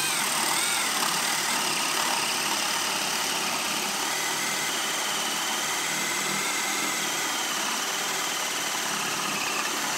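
Makita 18V brushless drill driver boring a 1-1/8-inch spade bit into a thick wooden beam, its motor running steadily under load with a whine that wavers slightly as the bit cuts.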